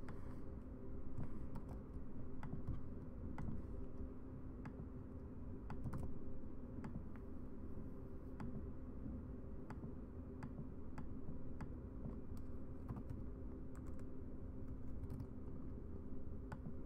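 Scattered clicks of computer keys and a mouse, irregular and a fraction of a second to a second apart, over a steady low hum.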